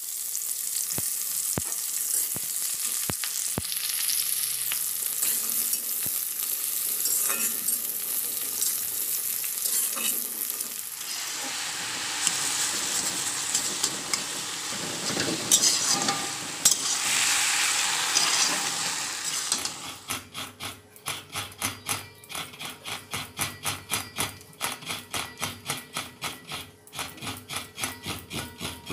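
Onions sizzling as they fry in hot oil in an iron kadai, then a spatula stirring and scraping a cabbage and potato curry in the pan, with a few knocks against the side. About two-thirds of the way through it changes to a steady rhythm of about three strokes a second: a coconut half being scraped on an upright coconut-grater blade.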